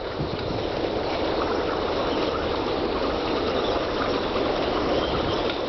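Storm wind buffeting the microphone: a steady, dense rush of noise with a low rumble and no break.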